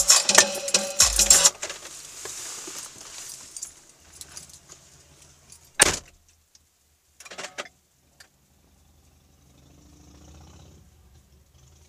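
Music from the car's stereo cuts off about a second and a half in. Then, in the parked car, one sharp click near the middle and a brief clatter of small clicks a second or so later.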